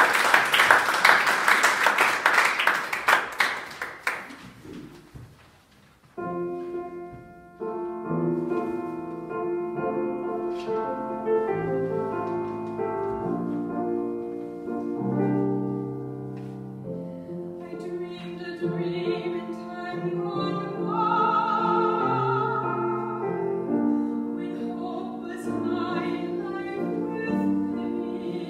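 Audience applauding, dying away over the first few seconds. After a short pause a grand piano starts an introduction, and partway through a soprano begins singing over it.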